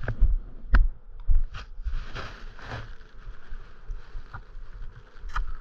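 Knife cutting and trimming rubber handlebar grips: scattered short scraping and handling sounds, with a sharp click about a second in and another near the end.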